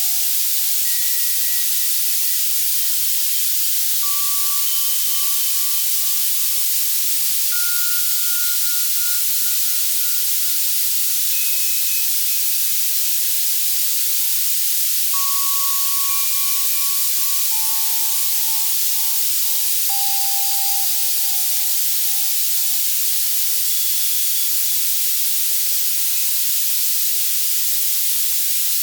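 Steady white noise from an Access Virus C synthesizer, bright and hissy in the treble, with soft synthesized bell tones. The bells sound one at a time at scattered pitches, a few seconds apart, each ringing out and fading over a second or two.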